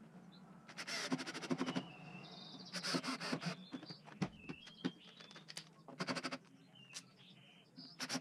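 Cordless drill driving screws into pine boards in three short bursts, each a fast rattle of clicks, with a fourth starting near the end. Birds chirp briefly in between.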